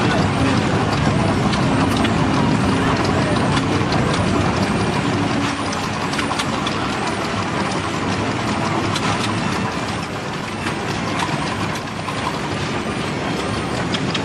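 Steady hiss and rapid fine clatter of working steam machinery, a little quieter from about halfway through.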